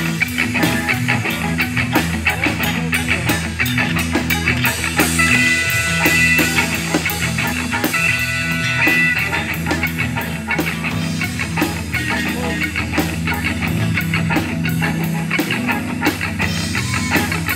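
A live rock band playing a song with drum kit, electric bass, electric guitars and keyboards, with steady drum beats and bass throughout. A high, held melodic line comes in twice near the middle.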